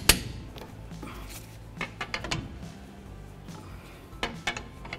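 Sharp metallic clicks of a torque wrench reaching torque on wheel-spacer lug nuts: one at the start, then a quieter stretch with a few light knocks of tools being repositioned, and three quick clicks near the end.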